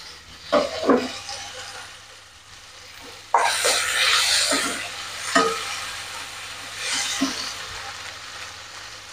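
Chopped tomatoes sizzling in hot oil in a nonstick pan while a wooden spatula stirs them, scraping and knocking against the pan a few times. About three seconds in, the sizzle flares up suddenly as the tomatoes are turned over, then dies back down.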